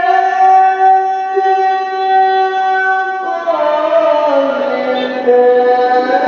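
A male Quran reciter's voice in melodic tilawah. He holds one long high note for about the first three seconds, then breaks into an ornamented run that slides downward in pitch and climbs back up near the end.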